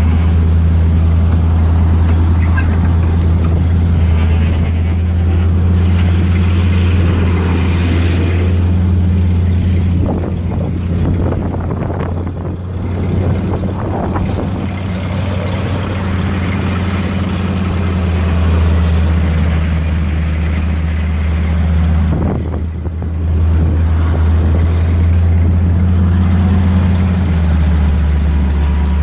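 1976 Ford grain truck's engine running steadily at a low, even speed. Its level dips briefly twice, about a third of the way in and again past the middle.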